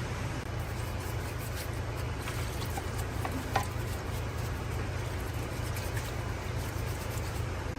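A steady low mechanical hum under an even hiss, with a few light clicks and taps.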